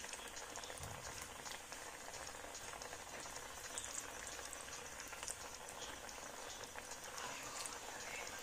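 Tapioca vada deep-frying in hot coconut oil in an iron kadai: a steady sizzle of fine crackles and bubbling.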